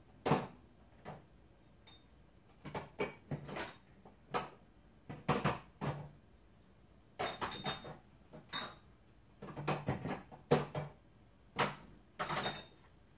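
Irregular knocks and clatters of jars and containers being moved about while someone searches a kitchen refrigerator, with a door opening and closing; a few of the knocks ring briefly.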